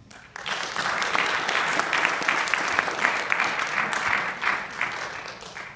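Audience applauding, a dense patter of many hands clapping that starts about half a second in and tapers off near the end.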